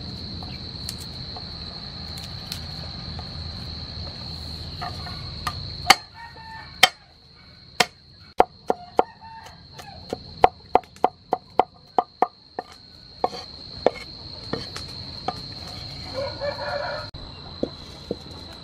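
Cleaver mincing garlic on a wooden cutting board: a run of sharp knocks, about three a second, in the middle. Chickens cluck now and then, with a steady high drone of crickets behind.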